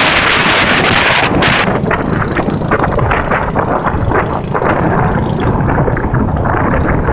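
Loud wind buffeting on the microphone of a camera moving along a road, with vehicle engine and road noise underneath. The high rushing eases after about a second and a half into choppier gusts.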